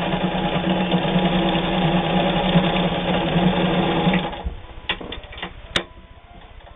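Home sewing machine, not a steel-gear model, running steadily at speed while sewing a short straight stitch, and stopping a little past four seconds in. A few light clicks follow, then one sharp click.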